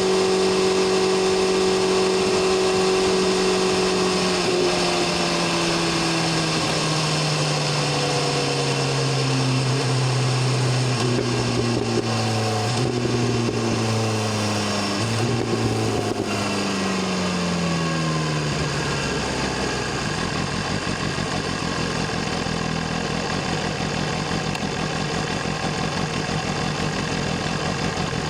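BMW S1000RR inline-four engine and exhaust running at a steady pitch, then falling off slowly over about fourteen seconds as the bike slows, with a few brief steps in pitch along the way. For the last several seconds it runs low and rough, over a steady rushing noise.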